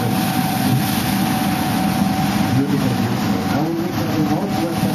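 A boat's engine running steadily, a dense low rumble with a constant whine.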